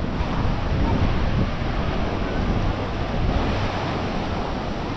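Ocean surf rushing steadily, mixed with wind buffeting the microphone.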